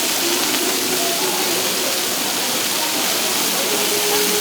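Beef steak sizzling on a hot griddle: a steady hiss.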